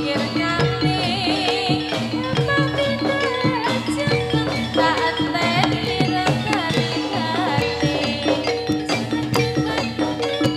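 Live jathilan gamelan accompaniment: kendang hand drums keep a steady rhythm under struck metal keyed instruments, with a wavering melody line above.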